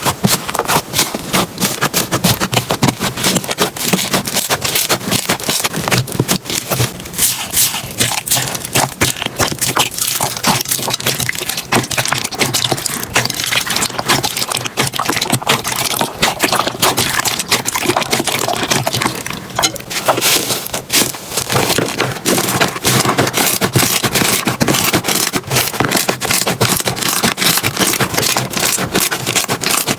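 Slime being squeezed and poked, giving a dense, continuous run of crackling, popping clicks.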